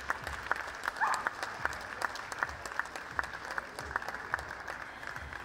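Audience applauding: dense clapping from a large crowd.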